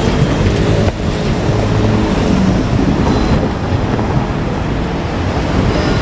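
JR Kyushu KiHa 47 diesel railcars running past close by: a loud, steady rumble of the diesel engines and steel wheels on the rails.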